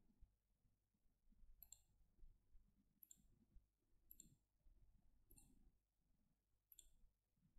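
Near silence broken by faint computer mouse clicks, about five of them, a second or so apart.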